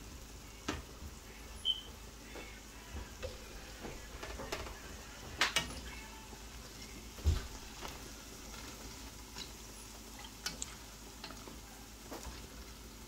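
Pholourie fritters deep-frying in a pot of oil, a faint steady sizzle, with scattered clicks and knocks as a plastic spoon turns them against the metal pot; the loudest knocks come about five and a half and seven seconds in.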